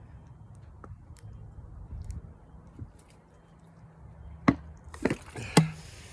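A low steady rumble with a few faint clicks, then three sharp knocks close together near the end.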